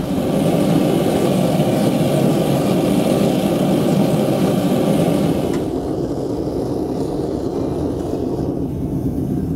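Gas forge burner running with a steady rushing hiss while a steel horseshoe heats in the chamber. About five and a half seconds in, the higher hiss drops away and a lower, steady rush carries on.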